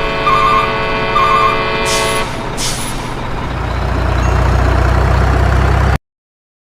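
Heavy-truck sounds: a reversing alarm beeping about once a second over a steady engine tone, then two short air-brake hisses, then a deep engine rumble that grows louder and cuts off abruptly.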